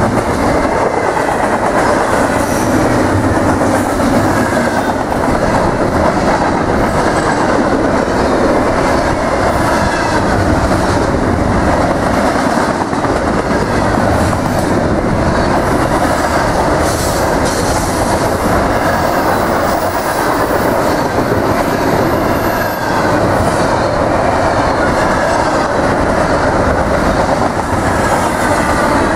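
Double-stack intermodal freight train's container well cars passing at speed close by: a loud, steady rumble of steel wheels on rail that keeps up without a break.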